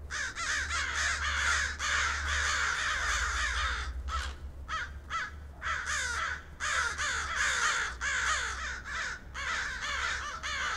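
Several crows cawing, harsh calls overlapping almost without pause, over a steady low hum.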